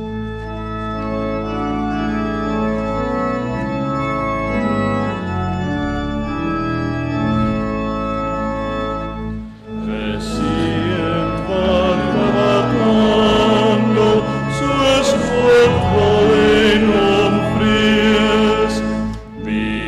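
Organ playing the introduction to a metrical psalm tune in held, steady chords. About ten seconds in, voices join to sing the psalm with the organ.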